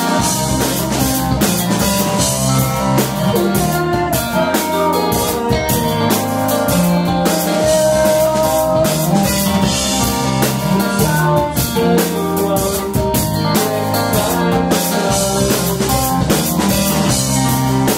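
Live math rock band playing: electric guitar lines over a drum kit.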